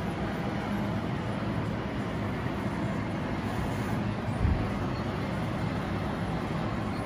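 Radio-controlled model construction vehicle running, a steady mechanical hum over a noisy bed, with one short low thump about four and a half seconds in.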